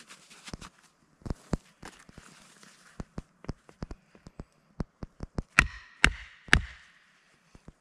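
Batoning firewood: a wooden baton knocking on the spine of a knife set into a log round on a chopping block. Light taps come first, then three hard strikes about half a second apart near the end.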